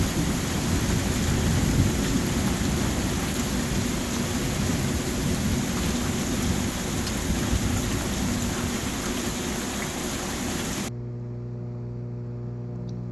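Heavy rain pouring down steadily. It cuts off abruptly about eleven seconds in, giving way to a quiet background with a low electrical hum.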